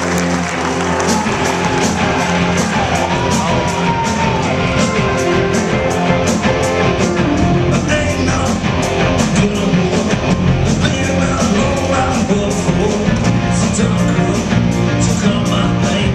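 Rock band playing live: electric guitars over bass and drums, with a steady beat.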